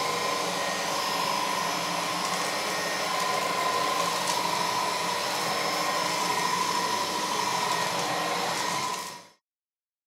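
ROIDMI X30 Pro cordless vacuum cleaner running steadily, a whooshing airflow with a high motor whine, cut off abruptly near the end.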